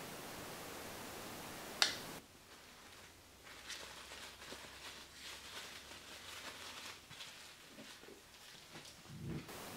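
Plastic cling film crinkling and rustling as it is stretched and pressed around a steel cake ring and plate, with a soft thump near the end. Before that there is a faint steady hiss and a single sharp click about two seconds in.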